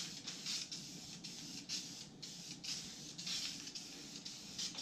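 Aerosol spray can of Metalcast paint hissing in a string of short, irregular spurts, some longer than others, as light coats are laid on.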